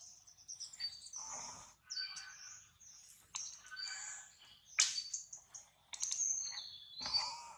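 Repeated high-pitched chirping and squealing animal calls in short bursts, one after another.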